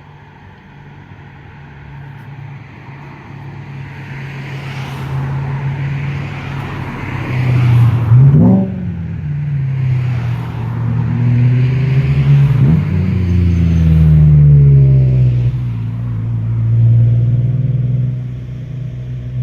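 Cars driving past on a mountain highway, their engines rising and falling in pitch as they accelerate and go by. The traffic grows louder over the first several seconds and stays loud.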